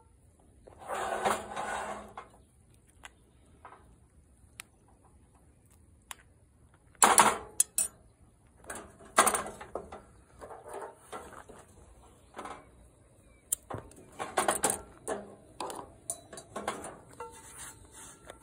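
A slotted metal spoon and a cast-iron skillet being handled on a camp stove grate, heard as a series of short scrapes and clatters. The loudest comes about seven seconds in.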